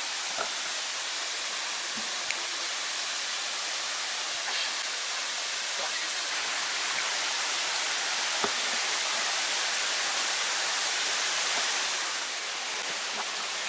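Mountain waterfall and its stream rushing steadily, a little louder for a few seconds and then dropping slightly near the end, with a few faint clicks.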